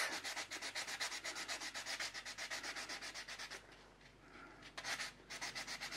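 A cast resin piece being hand-sanded with 1000-grit wet-and-dry sandpaper wetted with soapy water: quick, even back-and-forth rubbing strokes, several a second, stopping briefly a little past halfway and then starting again.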